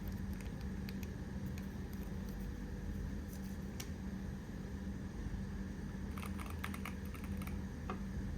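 Keystrokes on a Keychron Q1 HE keyboard with magnetic Hall-effect switches: scattered single key clicks, then a quick run of keypresses near the end, over a steady low hum.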